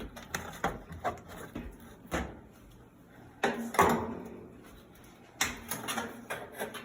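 Clicks and knocks of the retaining clips on an Amana washing machine's cabinet being pried loose, with a louder clunk about halfway through and a quick run of clicks near the end.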